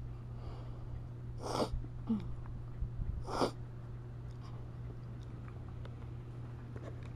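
A dog sneezing twice, two short sharp bursts about two seconds apart, over a steady low hum.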